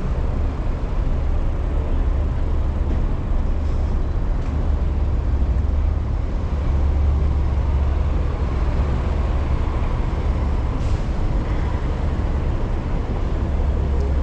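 Steady, loud rumbling noise of riding a bicycle through city streets: wind buffeting the microphone, mixed with passing street traffic.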